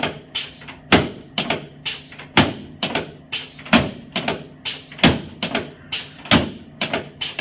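A steady, rhythmic run of sharp knocks or thumps, a little over two a second, with every third one louder.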